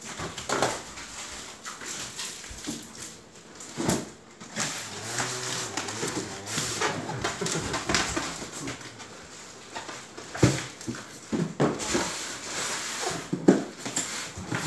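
Packing noise: scattered knocks, rustling and scraping as durian is packed into styrofoam boxes, with a short squeaky pitched sound around five seconds in.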